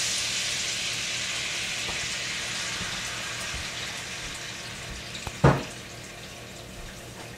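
White wine sizzling in a hot stainless pan of beef fat and butter, the hiss slowly dying away as it deglazes the pan. One sharp knock about five and a half seconds in.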